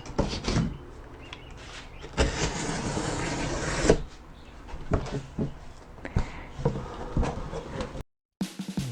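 Cardboard box and packaging handled during unpacking: a few knocks, then a scraping slide lasting about two seconds, then scattered knocks and rustles.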